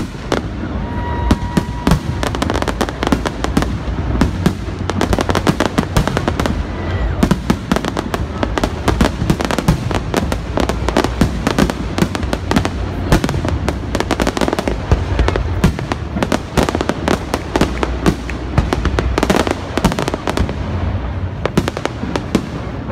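Fireworks display in full barrage: a dense, continuous stream of aerial shell bursts and crackling reports, many a second, over a steady low rumble.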